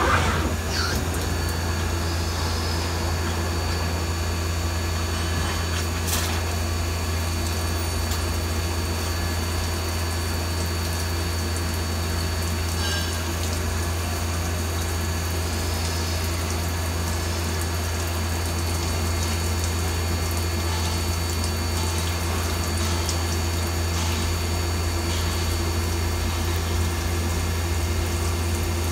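Mazak SQT 200MSY CNC lathe cutting a spinning part under flood coolant: a steady hiss of coolant spraying and splashing over the workpiece over a constant low machine hum. A brief knock right at the start.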